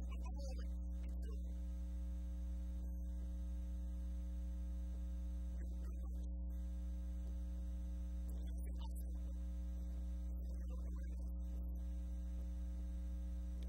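Steady electrical mains hum with a ladder of overtones, unchanging throughout, with faint music barely showing above it.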